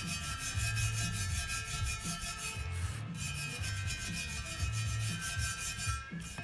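A brass-bristle brush scrubbing the aluminium mating surface of a Sea-Doo 951 crankcase half, rubbing back and forth in repeated strokes about a second apart.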